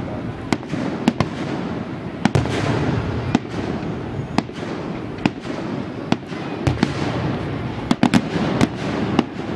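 Aerial fireworks going off: an irregular string of sharp bangs, roughly one or two a second, over a steady background din of further bursts.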